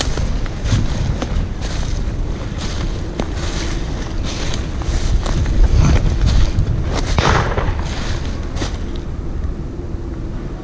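Wind buffeting the microphone in a low, steady rumble, with scattered light clicks and a short rushing gust about seven seconds in.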